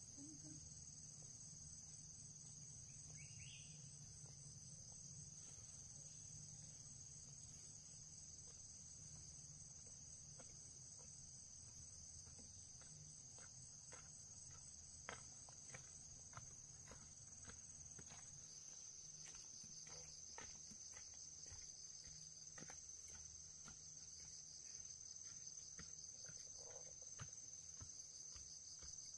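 Faint, steady, high-pitched chorus of insects, crickets or similar, trilling without a break. Scattered light clicks come through in the middle stretch.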